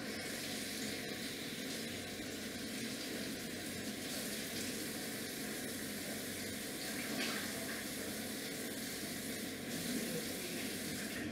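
Water running in a steady rush, starting and stopping abruptly.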